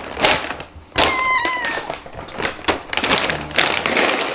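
A cat meows once, a short high-pitched call about a second in, begging for food at feeding time. Around it runs the crinkling rustle of a cat food bag being handled.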